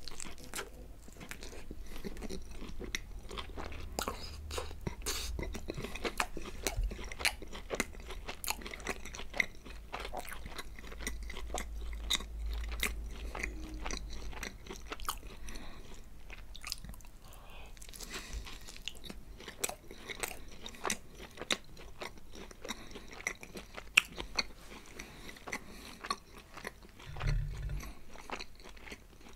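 Close-miked chewing and biting of Domino's pizza: irregular crunchy bites and wet mouth clicks.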